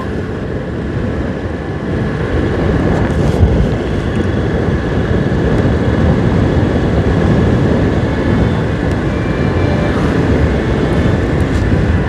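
Motorcycle riding at road speed: the engine runs under a steady rush of wind noise on the microphone.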